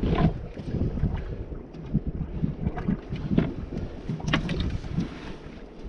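Wind buffeting the microphone and water lapping against the boat, an uneven low rumble, with a few short sharp clicks and knocks.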